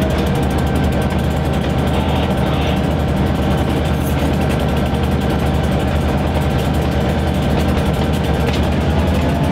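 Diesel locomotive engine running steadily at a low, even pitch.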